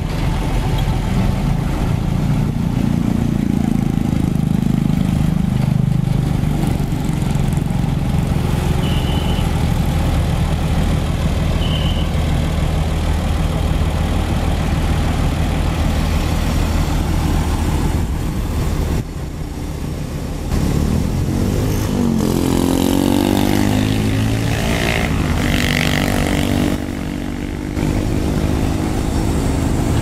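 Komatsu D65PX bulldozer's diesel engine running steadily with a low drone as the dozer tracks along the road. In the later part a passing vehicle's engine rises and falls in pitch.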